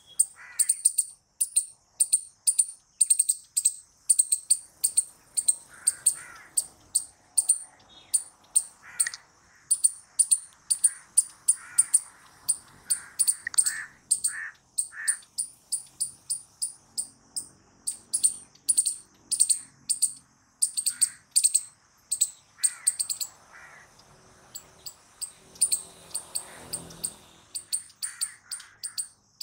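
Palm squirrels chirping: a fast, even run of sharp, high-pitched, bird-like chips, about two or three a second, with lower calls mixed in.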